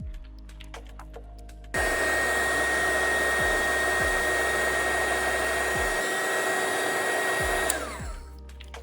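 Heat gun switches on about two seconds in and blows steadily with a high fan whine for about six seconds, shrinking heat-shrink tubing over a drone ESC. It is then switched off, and the whine falls as the fan spins down.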